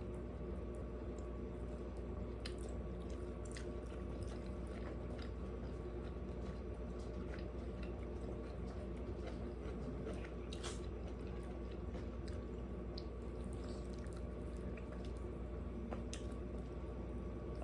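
Close-miked chewing and biting of food, wet squishy mouth sounds with scattered short crisp clicks, over a steady low hum.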